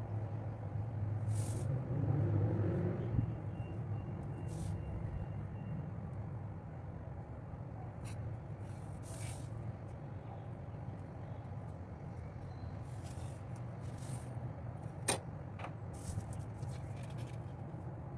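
Steady low background hum, with a few short scratching and rustling sounds from a pencil, ruler and card stock being handled, and one sharp tap about fifteen seconds in.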